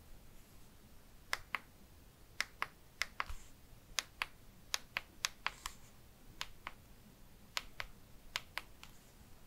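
Side buttons of a Google Pixel 9 phone pressed repeatedly under the thumb: each press gives a crisp click followed by a release click about a fifth of a second later, about nine presses in all.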